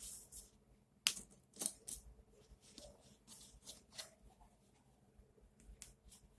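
Cotton fabric being handled and folded by hand: soft rustling with a scatter of short sharp clicks and taps, the loudest about a second in.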